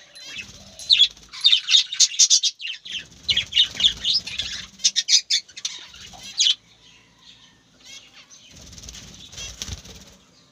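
Birds chirping in quick runs of short high notes, busiest in the first two thirds, with a few stretches of low fluttering or rumbling underneath.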